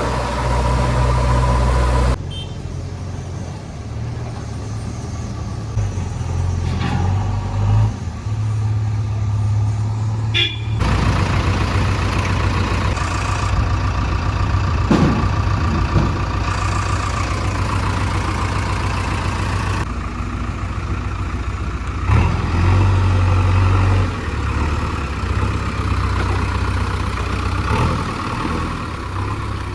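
Heavy diesel engines of a backhoe loader and tractor running at work, a loud steady rumble that changes abruptly several times.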